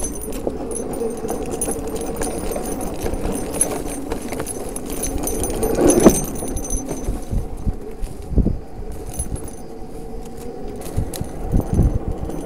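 Zero FX electric enduro motorcycle ridden over a bumpy dirt track: a steady hum from the electric drive under a jangling rattle from the bike, with a few thumps over bumps, the loudest about six seconds in.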